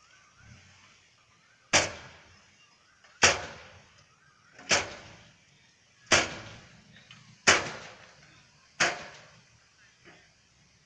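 Tailgate of a six-wheel dump truck banging against its raised tipper bed as the truck drives off. Six loud metallic bangs come about one and a half seconds apart, each fading quickly.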